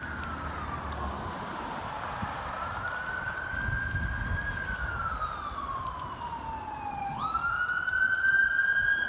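Ambulance siren in wail mode, its pitch rising and falling slowly. About seven seconds in it jumps quickly up in pitch before it climbs on and starts to fall again.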